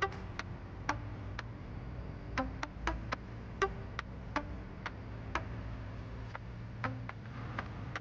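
Background music in a sparse, ticking passage: short plucked or clicked notes at uneven intervals, several with a brief pitched ring, over a faint low hum.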